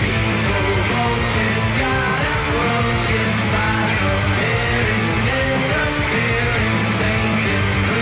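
Rock song with electric guitar, playing steadily.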